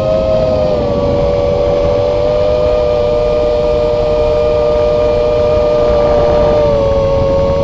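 FPV quadcopter's electric motors and propellers whining steadily, heard through the onboard camera's microphone, the pitch dipping slightly about a second in and again near the end, over a wide rushing hiss.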